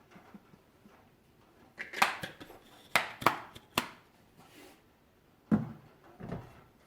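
Bottles and kitchen utensils being handled and set down on a counter: a run of sharp knocks and clinks about two to four seconds in, then two more knocks near the end.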